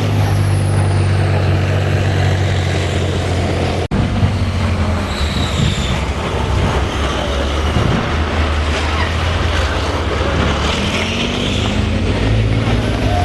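Heavy military vehicle diesel engine running loudly and steadily, with a few faint high squeals. The sound breaks off for an instant about four seconds in, then the engine note wavers up and down.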